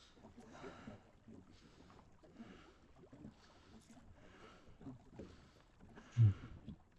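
Canoe paddle strokes in the water, a soft swish about every second. One short low thump comes near the end.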